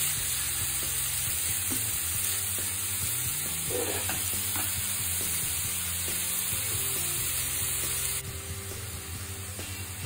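Marinated chicken pieces sizzling as they fry in a hot pan on a high flame, being turned over with a spatula. The sizzle cuts off abruptly about eight seconds in.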